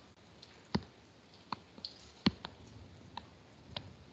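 About six sharp, irregularly spaced clicks of a computer mouse as a document page is scrolled, over quiet room tone.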